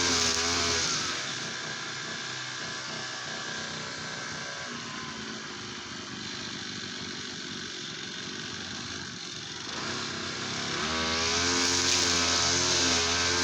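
Two-stroke TL33 brush cutter engine running at high revs, dropping back to idle about a second in, then revving up again near the end.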